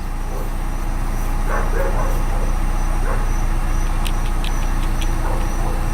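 Honda Fit's four-cylinder engine idling steadily and smoothly, its cylinder 1 misfire cured by a new ignition coil. A few light clicks about four seconds in.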